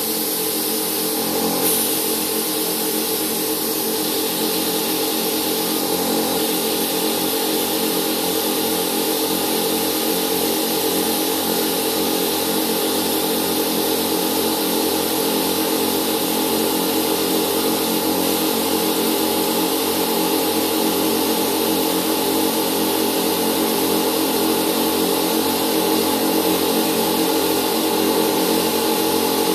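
Electric air compressor running steadily with a constant hum, under the continuous hiss of a compressed-air spray gun spraying black base coat onto motorcycle body panels.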